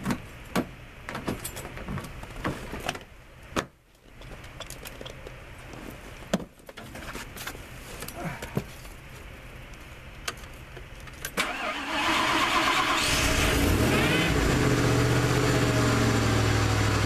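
A few clicks and knocks as the driver settles into the cab of a 1997 Ford F-150. About eleven seconds in, the starter cranks briefly and the truck's engine catches on a cold start, revs up and settles into a steady idle.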